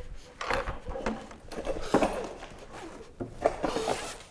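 Handling sounds of a black fabric bag being worked on a wooden table: irregular rustles and knocks, with a sharp knock about two seconds in and another near the end.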